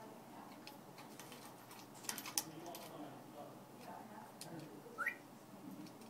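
African grey parrot giving one short rising whistle about five seconds in. A quick cluster of sharp clicks comes about two seconds in, over faint low mumbling.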